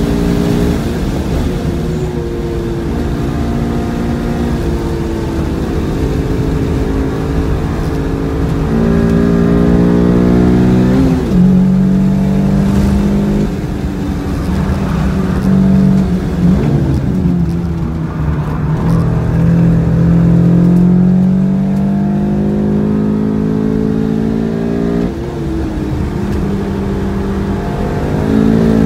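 2002 R50 Mini Cooper's 1.6-litre four-cylinder engine under hard track driving, heard from inside the cabin. The engine note climbs and falls through the corners and steps abruptly in pitch a few times, over steady road rumble.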